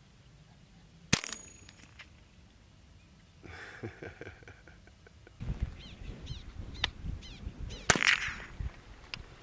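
.22 LR rifle shots at prairie dogs: two sharp cracks, the first about a second in and the second about eight seconds in, each striking the ground and throwing up dust.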